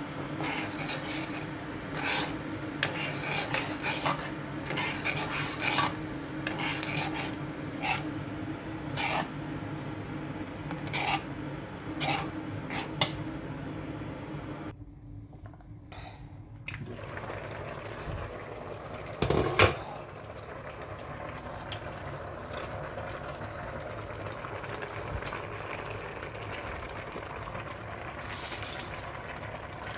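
A metal spoon stirring thick ogbono soup in a stainless-steel saucepan, clinking and scraping against the pot many times over a low steady hum. About halfway through the stirring stops; after one loud knock a steadier, quieter noise follows.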